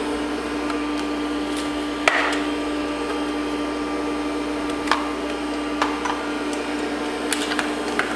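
Steady hum of a running IBM XT 5160 PC, its power-supply fan and hard drive spinning, with a few sharp clicks and knocks from drive brackets and ribbon cables being handled, the loudest about two seconds in.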